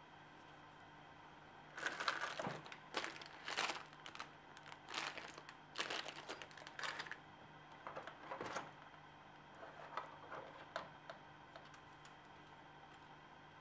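Clear plastic bag crinkling as it is handled by hand, in a run of loud bursts over about five seconds, followed by lighter rustles and clicks as the plastic miniature parts are handled.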